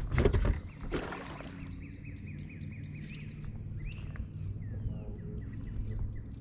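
Songbirds calling: a rapid run of short, evenly repeated descending chirps, then a few rising and falling whistles. A steady low hum lies underneath, and a few knocks sound at the very start.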